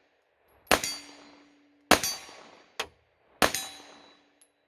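Three single shots from a 9mm Glock 45 pistol fitted in a CAA Micro Roni carbine-conversion chassis, fired at a slow steady pace about a second and a half apart. Each report is a sharp crack whose echo trails off over most of a second.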